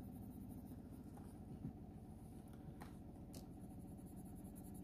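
Faint scratching of a Faber-Castell Polychromos colour pencil stroking across watercolour paper, over a steady low hum, with a few faint ticks.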